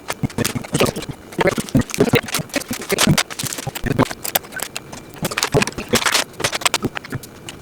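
Plastic Lego bricks clicking and clattering as pieces are handled and pressed together, a quick, irregular run of sharp clicks.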